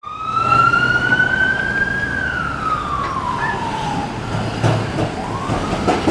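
Steel wheels of a TTC Flexity Outlook streetcar squealing on a tight curve: one high squeal that climbs for about two seconds, then slides down and fades. Later come a few knocks as the wheels cross the track junction, over steady traffic rumble.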